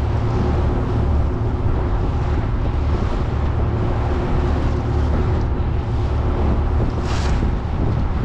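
Wind buffeting the microphone on the open deck of a small car ferry underway, with a heavy low rumble, over the steady hum of the ferry's engine and water washing past the hull. A brief louder hiss comes about seven seconds in.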